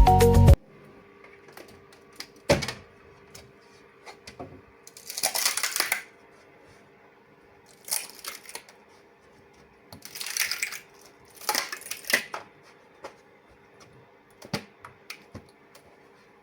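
Hands working 3D-printed plastic parts: scattered clicks and taps with a few short scraping rustles, over a faint steady hum. Background music cuts off about half a second in.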